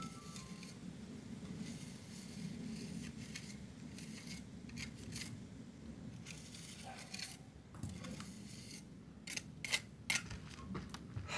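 A small metal trowel scraping and pressing mortar into the joints between the stones of a rough stone wall: many short scratchy strokes, with a few sharper clicks and taps near the end.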